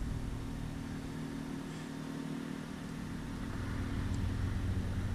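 Low, steady hum of a motor vehicle engine. It eases slightly about two seconds in and builds again toward the end.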